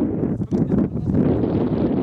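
Strong wind buffeting the microphone: a loud, continuous low rumble.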